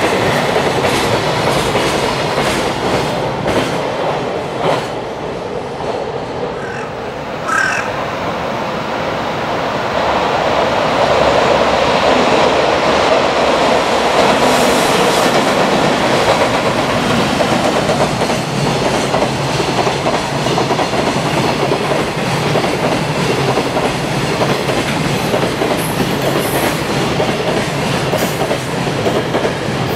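Long container freight trains rolling past at speed, the wagons' steel wheels clattering over the rail joints in a steady clickety-clack.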